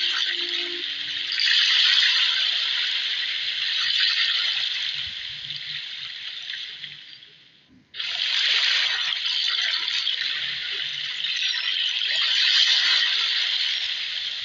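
Sea water rushing and splashing, a steady hiss that fades almost to nothing just past halfway, then cuts back in suddenly.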